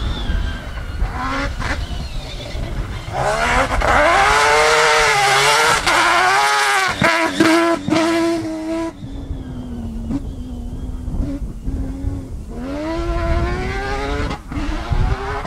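Peugeot 205 rally prototype's engine at racing speed on a dirt rally stage, the revs rising and falling repeatedly through gear changes. It is loudest as the car passes about four to nine seconds in, then rises again as the car accelerates away near the end.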